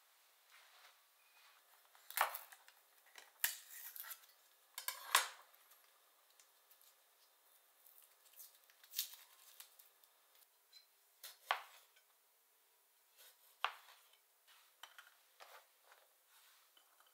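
Scattered sharp clicks, taps and clinks of utensils and cookware being handled at a kitchen counter, the loudest cluster about two to five seconds in.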